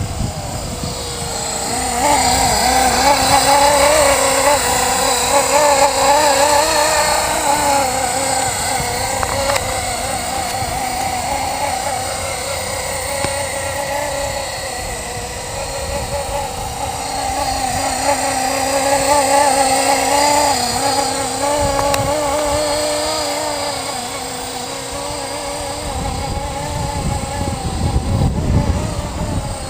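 Blade SR electric radio-controlled helicopter in flight: a continuous motor and rotor whine that wavers up and down in pitch as the load changes. Low wind buffeting on the microphone swells near the end.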